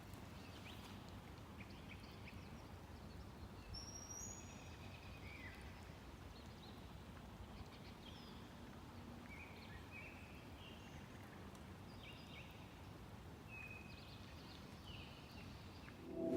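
Faint outdoor background with scattered short bird chirps and whistled calls throughout.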